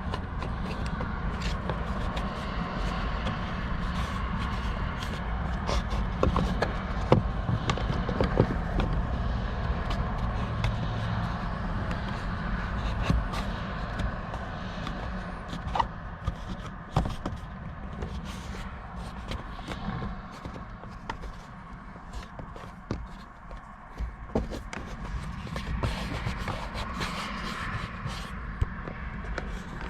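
Scattered clicks and knocks of hard plastic and metal mount parts being handled and fitted on a dashboard, over a steady low hum.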